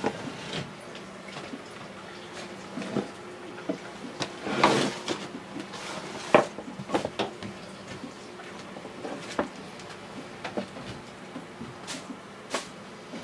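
Scattered knocks, clicks and clatter from a plumber working overhead on leaking water pipes, with a brief rustle and then the sharpest knock about six seconds in, over a faint steady hum.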